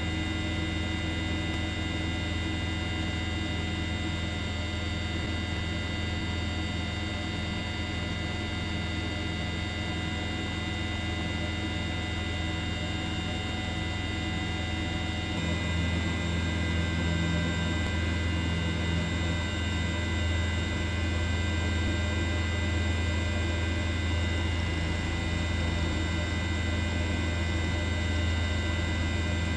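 A steady droning hum made of many fixed tones, with no rhythm or change in pitch. It grows a little louder about halfway through.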